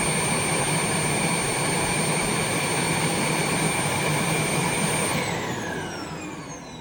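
Eureka robot vacuum's self-emptying station running its suction motor to empty the robot's dustbin: a loud, steady rush with a high whine. About five seconds in the motor shuts off, and the whine falls in pitch as it spins down.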